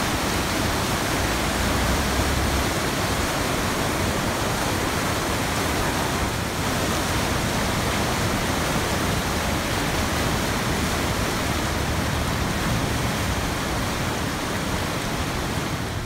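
A river in spate after heavy rain, its white-water rapids rushing loudly and steadily around the stone bridge.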